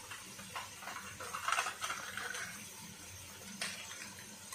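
A spoon scraping thick yoghurt out of a plastic tub, a scratchy scraping densest about halfway through, with a few light clicks of spoon on tub.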